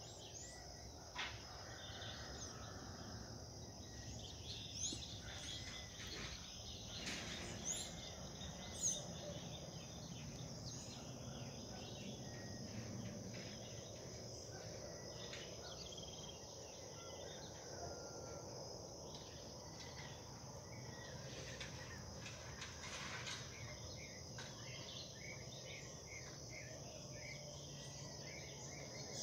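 Steady high-pitched insect chorus of crickets over a rural morning background, with a few short bird chirps scattered through the first ten seconds.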